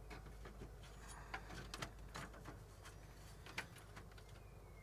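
Faint scattered clicks and light knocks of hands working on a computer's case and an expansion card, over a steady low hum.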